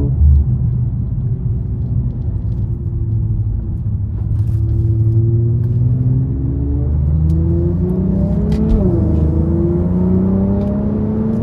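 Infiniti Q50's engine pulling under acceleration, its note rising steadily, then dropping sharply at an upshift about nine seconds in and climbing again.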